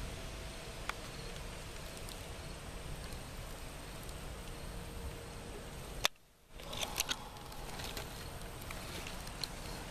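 Steady outdoor background noise with a few faint clicks; the sound cuts out briefly about six seconds in.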